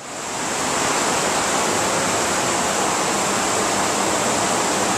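Rushing water of the Vltava River where it falls over the rapids: a steady, noisy rush that comes up over the first half second and then holds even.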